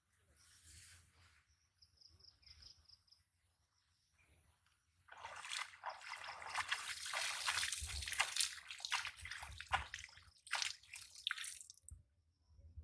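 Water splashing and sloshing with irregular drips and splatters, starting about five seconds in and stopping suddenly near the end.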